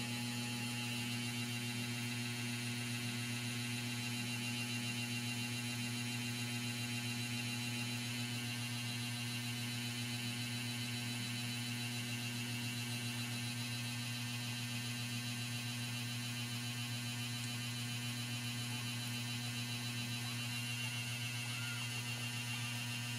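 Steady electrical mains hum with an unchanging pitch. Near the end a newborn kitten gives a faint squeaky mew.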